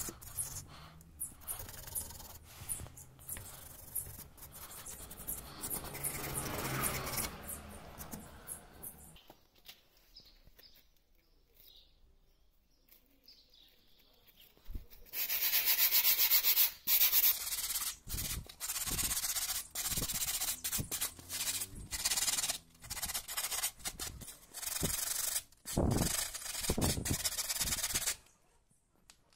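Abrasive paper and an abrasive sponge being rubbed by hand over a cast brake caliper, scuffing it clean before painting, in quick scratchy back-and-forth strokes. The rubbing goes quiet for several seconds in the middle, then comes back louder and stops just before the end.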